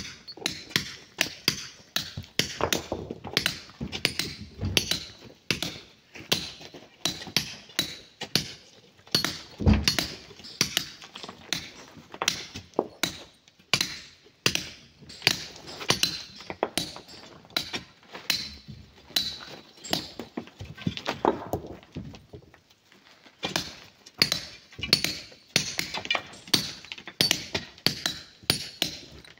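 Small hand hammers striking steel chisels and rock as miners break up boulders: a rapid run of sharp metallic clinks, about three a second, from more than one hammer. One heavier thud comes about ten seconds in.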